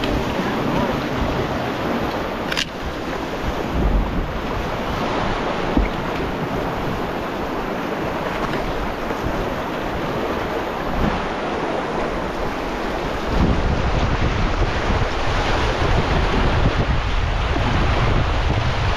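Rushing whitewater of a river rapid, with wind buffeting the microphone. A single sharp click comes about two and a half seconds in, and the low rumble grows louder a little past two-thirds of the way through.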